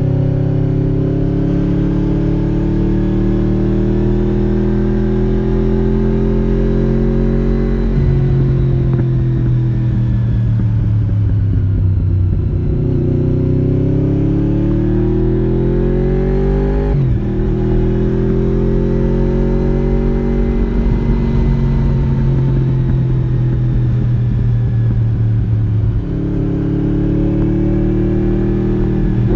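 1993 Honda VFR750 (RC36) V4 engine heard onboard through its modified original muffler, pulling along a winding road. The note climbs and falls with the throttle, broken by a few sudden steps in pitch where gears change.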